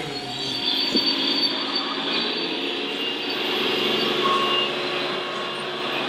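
Radio-controlled scale construction machines running, a steady mix of whining electric motors and gears, with a single knock about a second in.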